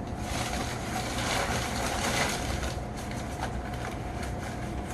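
Packing peanuts and box packaging being rustled and rummaged through by hand, a dense crackly rustle with small irregular ticks, over a steady low rumble.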